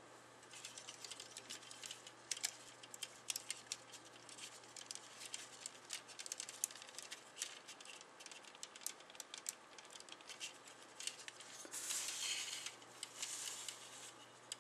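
Faint clicking and tapping of hard plastic model-kit parts being handled as a thruster is pegged into the back of a Gundam figure, with a short stretch of rubbing or scraping near the end.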